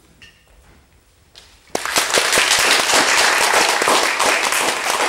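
Audience applause, breaking out suddenly a little under two seconds in, a dense, loud patter of many hands clapping.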